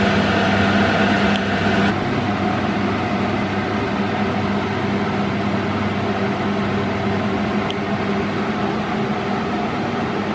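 Steady whir of a running electric fan motor with a constant low hum. The hiss on top drops slightly about two seconds in.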